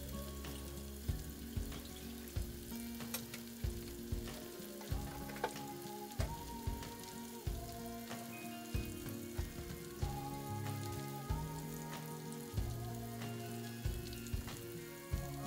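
Battered chicken pieces deep-frying in hot corn oil in a wok: a steady sizzle with sharp pops about once a second.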